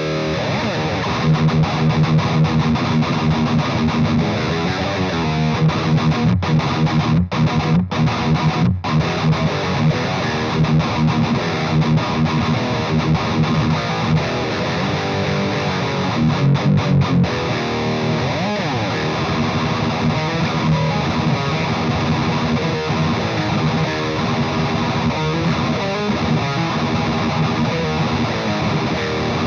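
High-gain distorted electric guitar riffing through a Splawn Quickrod 100 valve amp on its third-gear overdrive, the amp's highest gain setting, miked on a 1x12 cabinet with Celestion Greenback speakers. The guitar is tuned to E flat. The playing runs on with a few short stops about six to nine seconds in.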